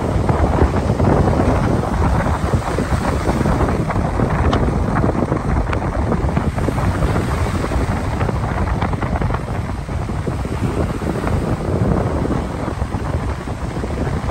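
Ocean surf breaking and washing up a sandy beach, a steady loud rush, with wind buffeting the microphone.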